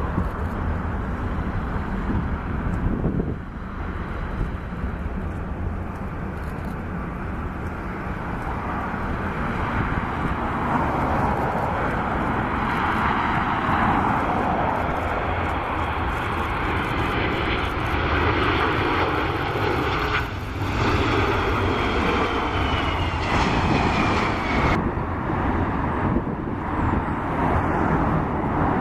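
Four-engined Boeing 747-400 (Rolls-Royce RB211 turbofans) on its landing approach: a steady jet roar that grows louder over the first several seconds and then holds, with a fan whine falling in pitch about three-quarters of the way through as the aircraft passes.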